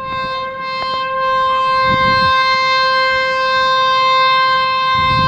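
Horn of a Pakistan Railways HBU-20 diesel locomotive sounding one long, steady single-note blast on the approaching train.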